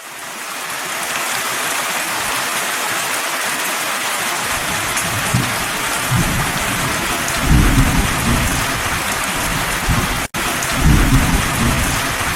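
Heavy rain pouring down steadily, with deep rumbles that swell up about halfway through and again near the end. The sound drops out for an instant shortly before the end.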